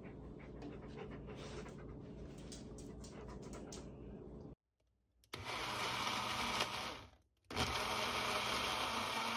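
Faint sniffing and licking from dogs at a banana. From about halfway, a countertop blender runs loudly, blending banana, yogurt, milk and cooked spinach. It stops briefly and starts again.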